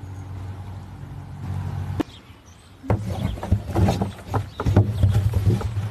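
A steady low hum for about two seconds. Then, after a short lull, a run of irregular heavy thumps and knocks as a Hereford butts and shoves a large tyre against a wooden fence.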